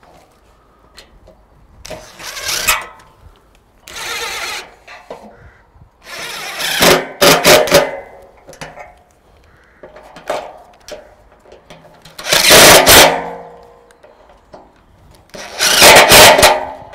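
Cordless DeWalt driver running in repeated short bursts as it drives bolts through the bracket joining an aluminium beam to the top of a pergola post. There are about six bursts of one to two seconds each, and the loudest come in the second half.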